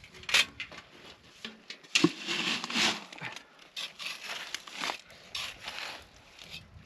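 Navvy jack, a sand-and-gravel aggregate, being scooped and measured out for a concrete batch: irregular gritty scrapes and crunches, the loudest about two to three seconds in.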